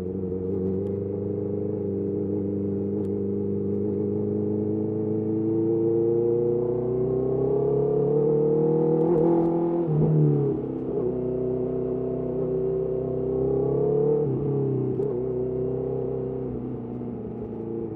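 Honda CBR650R's inline-four engine through a Mivv MK3 carbon exhaust, pulling steadily higher in revs for about nine seconds. The pitch drops sharply about ten seconds in, climbs again, and dips once more near the fourteen-second mark before holding steady.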